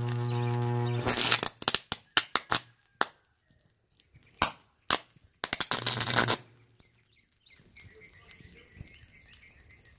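Compressor motor stator on 240 V AC humming steadily, then from about a second in cracking and sputtering in a series of loud bursts as its windings short out, with a longer crackling burst past the middle. It falls quiet after about seven seconds, leaving faint birdsong.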